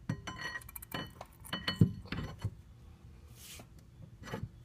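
Steel alignment tool clinking and knocking against the gimbal bearing and engine coupler as it is worked into a Mercruiser Alpha One Gen 2 gimbal housing to check the bearing's alignment. A run of sharp metallic clinks with a short ring, the loudest just under two seconds in, then a brief hiss and a last few knocks near the end.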